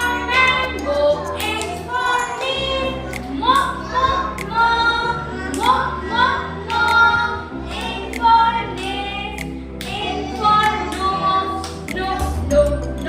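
Music with singing: voices sing a melody over a backing track with a steady bass line.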